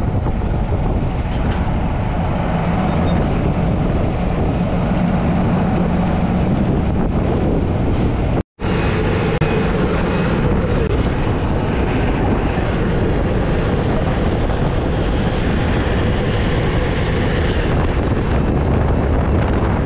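Riding in an open golf cart at speed: steady wind rush over the microphone with the cart's motor and tyre noise on the road, broken by a split-second gap about eight seconds in.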